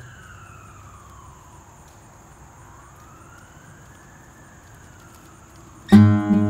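A faint siren wailing, its pitch slowly rising and falling about every four and a half seconds. About six seconds in, acoustic guitar music starts.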